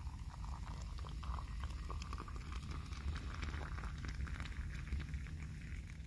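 Hot coffee poured from a soot-blackened metal coffee pot into a ceramic mug: a steady trickling stream whose pitch rises as the mug fills.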